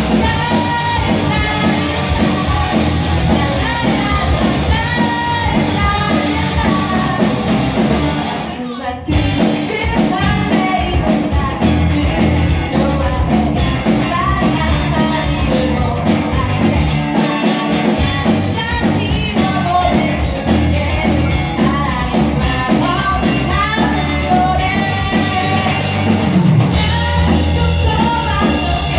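Live rock band playing: a woman singing over electric guitar, bass guitar and drums. About nine seconds in the sound briefly thins and drops, then the full band comes back in.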